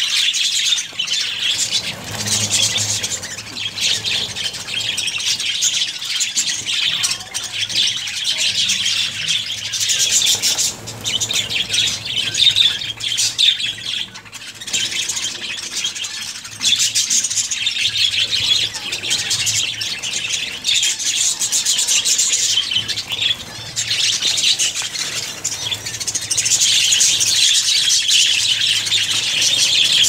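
Budgerigars chattering and squawking without pause, a dense high twittering of many birds that grows louder in the last few seconds.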